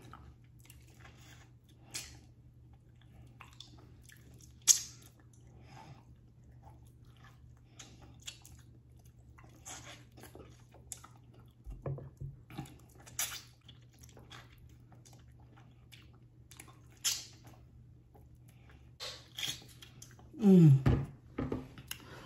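Close-miked eating: wet chewing and lip-smacking of meat eaten by hand, in scattered short clicks and squelches. A short hummed vocal sound comes near the end.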